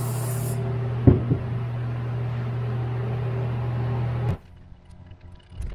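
A brief high hiss of aerosol brake cleaner being sprayed at the start, over a steady electric machine hum that cuts off suddenly about four seconds in. Two light knocks come about a second in, and after the hum stops there is faint rubbing and light ticking of a shop towel wiping the engine block.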